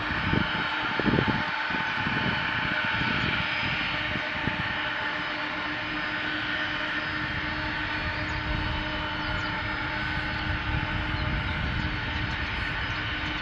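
Jet engines of a Condor Boeing 767 taxiing at low power: a steady whine with several held tones over a low rumble, with gusty low-end surges in the first few seconds.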